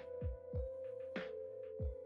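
Background music: a steady held synth tone over a regular, soft low beat.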